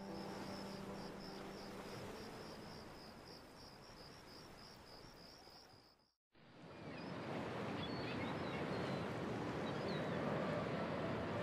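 Night insects chirping in a steady, high pulsing trill, about three to four chirps a second, over a soft background hiss; it fades out about six seconds in. After a brief silence, a steady rushing outdoor ambience of sea and wind follows, with a few faint high chirps.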